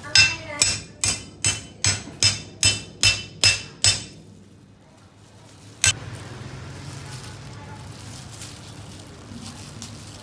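One cleaver hammered on the back of another cleaver lodged in a flathead catfish head, driving the blade through the bone: ten evenly spaced ringing metal strikes, about two and a half a second, over the first four seconds. One more sharp knock comes about two seconds later.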